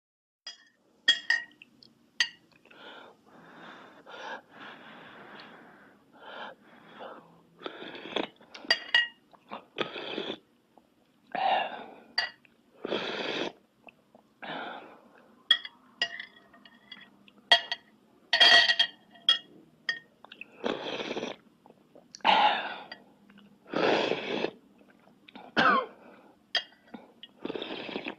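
A person making a long run of mouth and breath noises: sharp clicks, short breathy rushes and gasping, wheezing sounds, with no steady rhythm.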